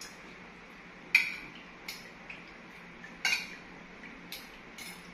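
Metal spoon and fork clinking and scraping against a ceramic plate of rice while eating: about six sharp clinks, the loudest about a second in and just after three seconds in.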